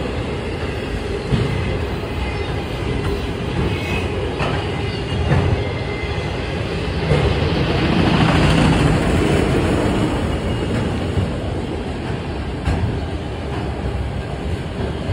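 CSX mixed freight train rolling past with a steady rumble of steel wheels on rail, a few sharp clacks over rail joints, and a swell in loudness about halfway through.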